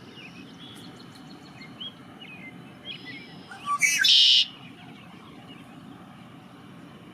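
Several small songbirds chirping in short, pitch-bending notes, with a loud, harsh burst lasting under a second about four seconds in. A steady low rumble runs underneath.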